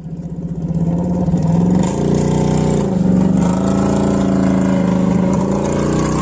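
Buggy engine running, fading in over the first second and then holding at steady revs, with small rises and dips in pitch about two and three seconds in.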